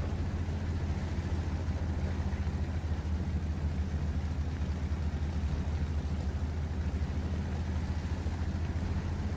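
Car engine idling with a steady low hum, heard from inside a stopped car's cabin.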